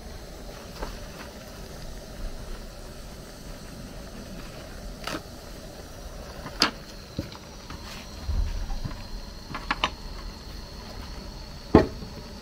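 Paper towels being pulled off a roll and laid out: a few sharp clicks and taps, the loudest near the end, with a brief low rumble in the middle.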